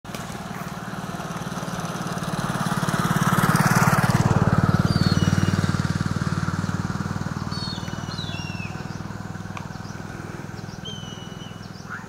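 A motor vehicle engine running, growing louder to about four seconds in and then slowly fading. Short, high, falling bird chirps come in from about five seconds on.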